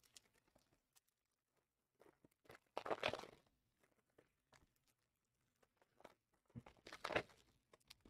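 Foil trading-card pack wrappers crinkling as the packs are handled, in two short bursts, about three seconds in and again near seven seconds, with faint ticks between.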